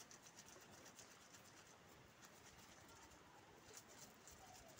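Near silence: faint background with a light, high ticking patter.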